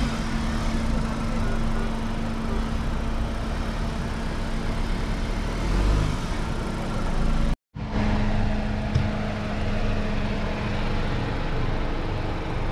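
Mahindra Thar's engine running steadily, with a brief gap of silence a little past the middle.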